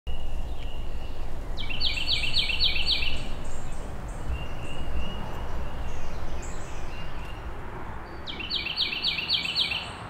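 Carolina wren singing two bursts of its rolling, quickly repeated phrase, about five repeats each, once early and again near the end. A steady low rumble of outdoor background noise runs underneath.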